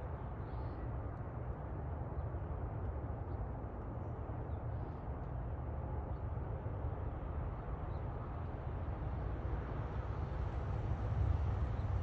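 Steady outdoor background rumble, a low even noise with no distinct event in it, swelling slightly near the end.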